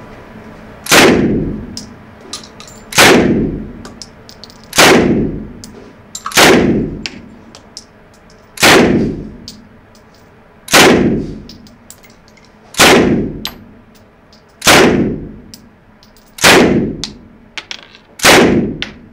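Uzi submachine gun fired in deliberate single shots, ten shots about two seconds apart. Each shot has a short echo off the indoor range walls.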